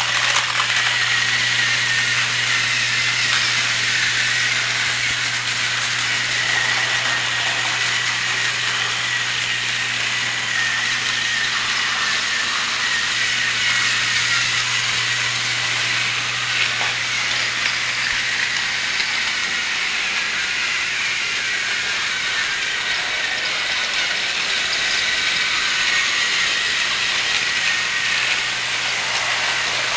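Battery-operated TrackMaster toy trains running on plastic track: a steady small-motor whir with the wheels and gearing rattling. A low hum underneath drops away about two-thirds through.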